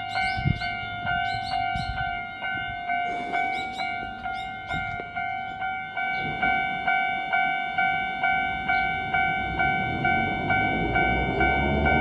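Japanese railroad-crossing alarm bell ringing about twice a second in a steady two-tone clang. Near the end the low rumble of an approaching Sangi Railway Hokusei Line 762 mm narrow-gauge train swells beneath it.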